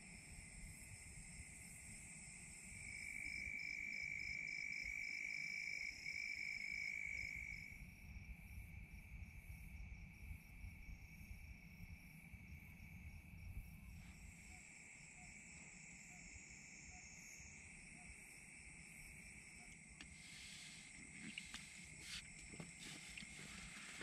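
Faint evening chorus of singing insects: steady high-pitched trilling, one singer louder from about three to eight seconds in. A few soft clicks near the end.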